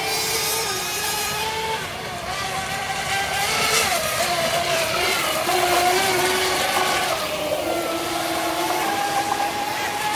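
Radio-controlled racing boat's engine running flat out, a steady high buzz whose pitch wavers up and down as the boat runs and turns across the water.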